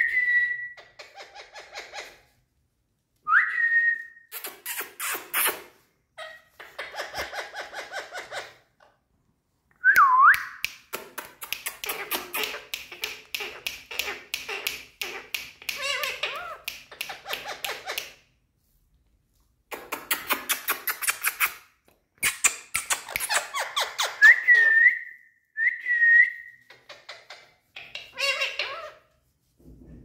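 Indian ringneck parakeets calling: about five short clear whistles, some sliding upward, between long runs of fast, rattling chatter.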